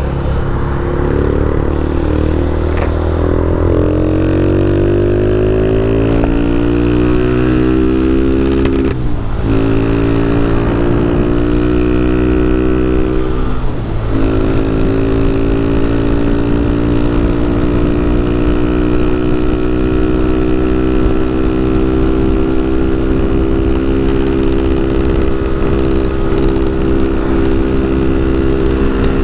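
Motorcycle engine accelerating through the gears. The revs climb steadily for about nine seconds, drop briefly at an upshift, climb again, dip at a second shift about fourteen seconds in, then hold steady at high revs.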